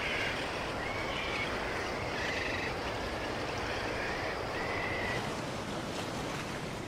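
Coastal ambience: a steady rush of surf, with a short, high call repeated about once every second or so.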